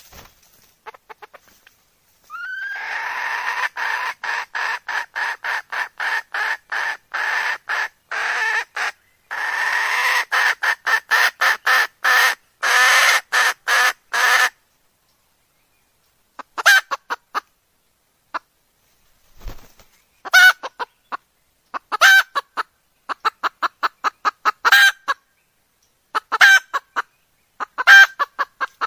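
Hen red junglefowl cackling: a fast, even run of notes, about three a second, for some twelve seconds, then after a pause short bursts that each open with a louder note. It is the call of a hen in breeding condition, used as a lure to bring wild roosters in.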